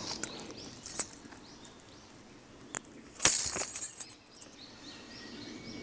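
Quiet outdoor ambience at a reservoir's edge with faint bird chirps, broken by a few sharp clicks and a short rustle about three seconds in, the loudest sound.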